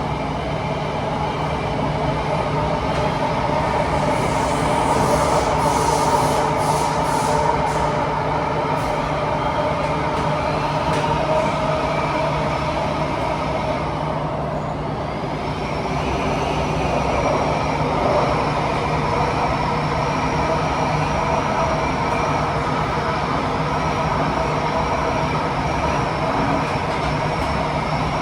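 Inside a Kawasaki–CRRC Sifang T251 metro train running between stations: a steady rolling rumble under loud wind noise. About halfway through, a thin high whine rises in and holds steady.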